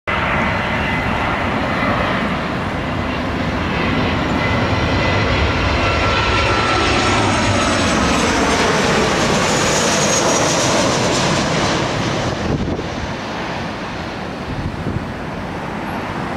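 Boeing 737 jet engines on landing approach passing low overhead. A steady jet roar builds to its loudest as the plane passes, about ten seconds in, with engine tones sliding down in pitch, then fades as it moves away.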